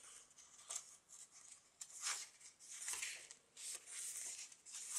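Pages of a thick handmade paper journal being turned and handled: a series of short papery rustles and swishes with a few soft taps.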